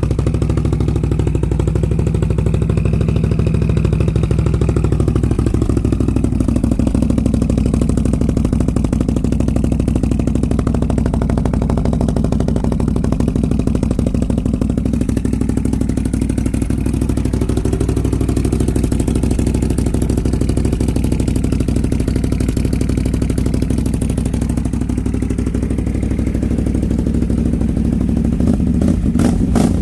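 Can-Am Renegade ATV engine running through an aftermarket universal slip-on exhaust, with a deep exhaust note. It mostly idles steadily, rising and falling gently in pitch a couple of times, with a rattle of clicks near the end.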